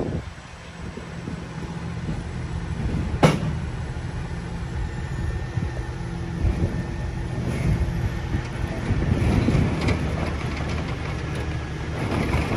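Crane engine running steadily while hoisting a hot tub, with one sharp click about three seconds in.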